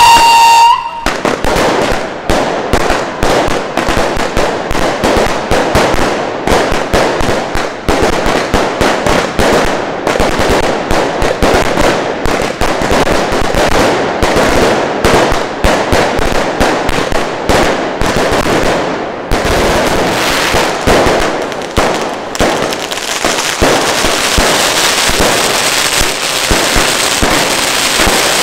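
A long fuse-lit string of firecrackers (truenos de mecha) going off as a rapid, continuous rattle of bangs, after a whistle cuts off about a second in. Near the end the bangs thin into a steadier hissing rush of ground fountains spraying sparks.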